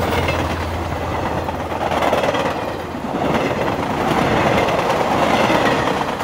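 Sound-design rumble under an animated logo: a loud rushing, rattling noise that swells and dips over a steady low drone.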